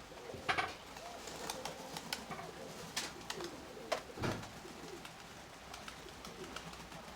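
Nikolaev pigeons cooing, with scattered sharp clicks and taps.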